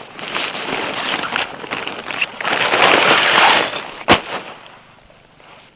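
Rustling and crinkling of a synthetic fabric tent bag and its contents being handled and pulled out, loudest about three seconds in. A single sharp knock about four seconds in, then it goes quiet.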